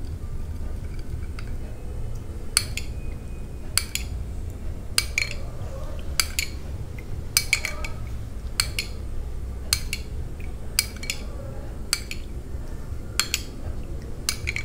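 Metal spoon clinking against a small glass bowl about once a second, stirring a thick paste of grated garlic, ginger and honey. A low steady hum runs underneath.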